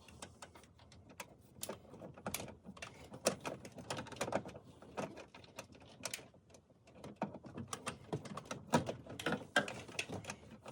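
Irregular light clicks and taps of plastic dash parts being handled and fitted around the instrument cluster.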